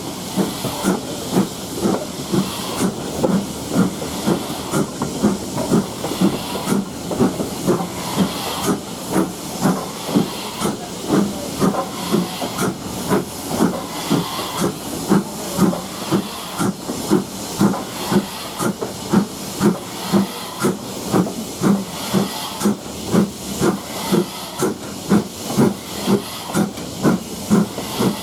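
LMS Ivatt Class 2MT 2-6-2T tank engine No. 41313 working steam, its two-cylinder exhaust beating in a steady rhythm of about two puffs a second over a continuous hiss of steam.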